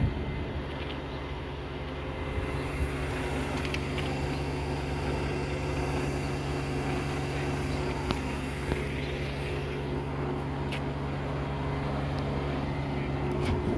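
Truck engine idling steadily, an even low hum that holds the same pitch throughout, with a few faint clicks.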